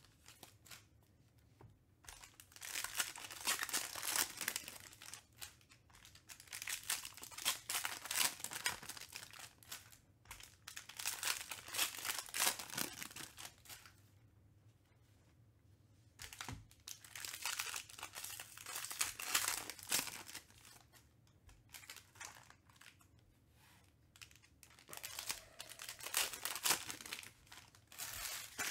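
Trading card pack wrappers being torn open and crinkled, in bursts a few seconds long with short lulls between.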